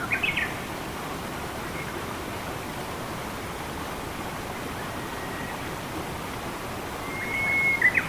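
Steady rush of flowing water with a bird calling over it. There are a few quick notes right at the start, and near the end a held whistle followed by quick notes.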